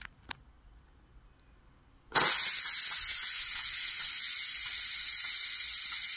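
A couple of faint clicks, then about two seconds in a First Austria 5130 multicooker's pressure-release valve bursts into a loud, steady, high hiss of escaping steam as the cooker is vented after pressure cooking.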